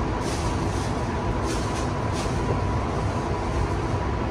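Interior noise of a metro train car in motion: a steady low rumble with a faint constant whine, and a few brief hisses in the first half.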